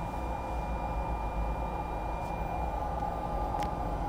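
Steady hum and hiss of the aircraft's auxiliary power unit (APU) running after engine shutdown, heard inside the cockpit, with a thin steady whine over it. A faint click about three and a half seconds in.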